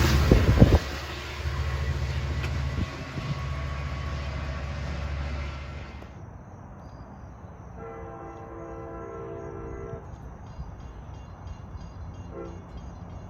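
A train rumbling past, loud at first and fading over the first few seconds. Then a locomotive's Nathan K5LA five-chime air horn sounds a long chord of several notes, a short toot, and starts another blast near the end.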